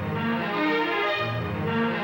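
Instrumental background music, sustained notes moving in a slow repeating figure.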